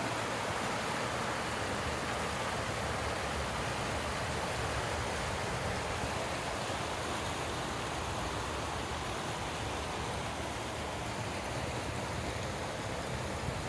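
Muddy floodwater rushing steadily down a cobbled weir into a swollen river: a continuous, even rush of water with no breaks.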